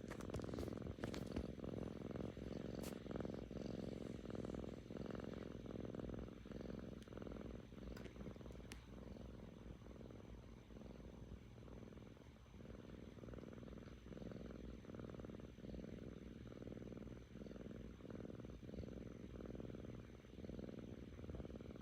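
Seven-month-old kitten purring close up: a low, snore-like rumble that swells and fades in a steady rhythm about once a second. It is the purr of a contented cat.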